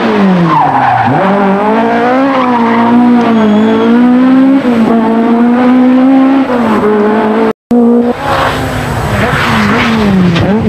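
Ford Escort Mk2 RS1800 rally car's Cosworth BDA twin-cam four-cylinder engine at high revs as the car passes: the note falls as it goes by, then rises and falls repeatedly through gear changes. The sound drops out for a moment about three quarters through, then the car is heard again with tyre squeal and another falling note near the end.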